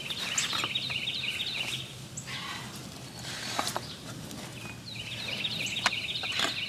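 A songbird sings two quick twittering phrases of rapid high chirps, one at the start and one about five seconds in. Under them come short crackles and rustles as stiff roasted maguey leaves are laid over the pit.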